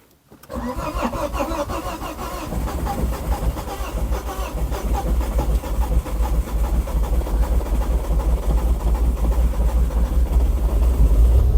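The Ford Focus ST225's turbocharged 2.5-litre five-cylinder engine cranking over on the starter without catching, a steady fast pulsing that grows slowly louder. The engine has stood for over a year and won't fire.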